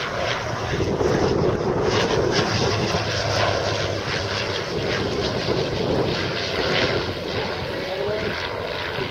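Propeller drone of a de Havilland DH89 Dragon Rapide's two six-cylinder inverted inline piston engines as the twin-engined biplane banks past in flight. The drone swells about a second in and eases a little near the end.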